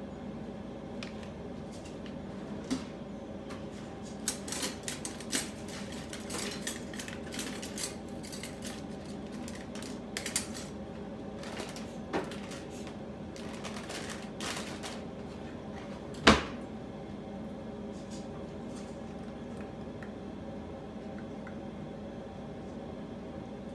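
Kitchen clatter as plastic containers, bowls and utensils are handled and set down on a counter: a string of light clinks and knocks, with one sharp, louder knock about sixteen seconds in. A steady low hum runs underneath.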